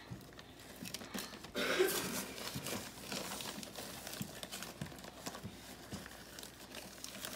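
A plastic bag of brown sugar crinkling and rustling as it is handled and a metal measuring cup scoops sugar from it, with small knocks. There is a louder rush of rustling about one and a half seconds in.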